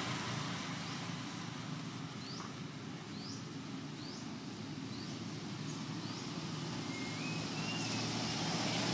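Outdoor ambience: a steady low hum under a series of about seven short, high, rising chirps, one roughly every second, followed near the end by a brief two-step whistle.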